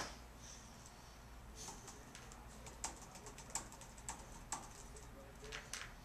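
Typing on a laptop keyboard: faint, irregular key clicks, starting about a second and a half in.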